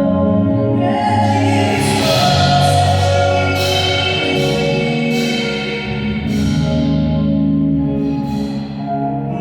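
Band music from a sound check: sustained chords ring throughout, with about five crashes spread across the passage.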